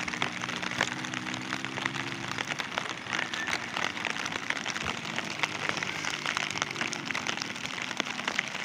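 Heavy rain falling, a dense hiss made of many close drop impacts. A low steady hum sits under it for the first couple of seconds and returns faintly later.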